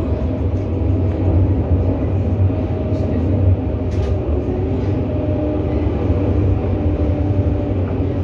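Tram running along its line, heard from inside the car: a steady low rumble of wheels on rail with a faint steady hum over it. Two brief clicks come about three and four seconds in.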